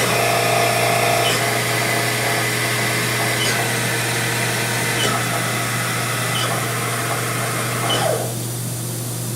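Haas VF2 vertical machining center's spindle slowing down, its whine gradually falling in pitch over a constant low hum. About eight seconds in the high hiss drops away and the sound gets quieter.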